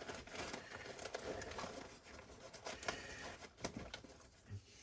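Faint handling noise of packing a tool bag: rustling with a few light knocks and clicks, the loudest about three and a half seconds in, as a bag of zip ties goes into the bag's pouch.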